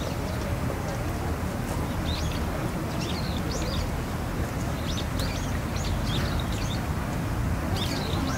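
Outdoor ambience: small birds chirping in short high calls, often several in quick succession, over a steady low background rumble.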